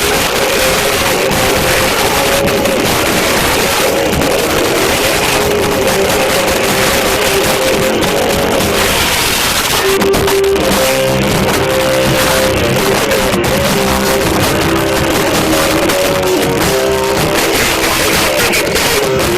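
A rock band playing live at full volume: distorted electric guitar and drums, the recording overloaded and badly distorted. The guitar riff changes about ten seconds in.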